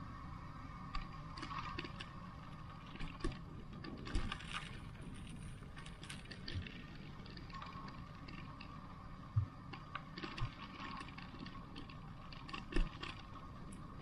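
Street ambience: a steady background hum with a low rumble, broken by scattered light clicks and knocks, the sharpest about nine and a half seconds in and again near the end.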